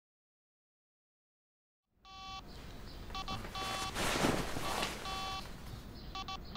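Silence for about two seconds, then a smartphone ringtone for an incoming video call: short electronic tone phrases that repeat several times. A loud rustle of bedding comes about two seconds after the ringing starts.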